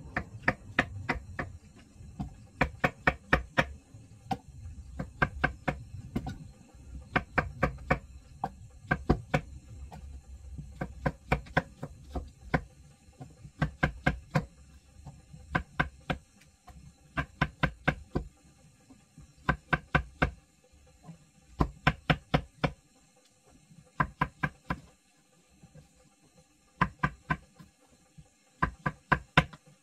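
Chef's knife slicing mushrooms on a wooden chopping board: sharp knocks of the blade on the wood in quick runs of several strokes, with short pauses between the runs.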